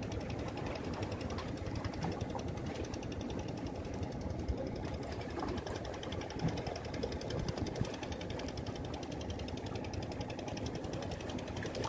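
An engine running steadily, a low rumble with a fast, even ticking.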